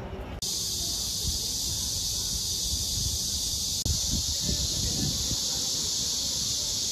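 A steady, high-pitched chorus of cicadas droning, with a low rumble underneath. It starts abruptly about half a second in and breaks off for an instant just before four seconds.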